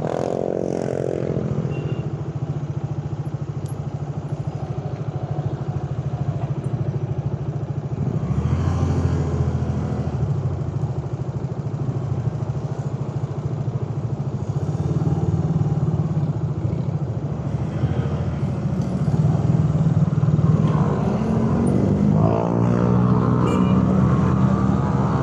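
Carburetted Suzuki Raider 150 single-cylinder four-stroke motorcycle engine running steadily while riding, with road noise. The revs climb near the end as it accelerates.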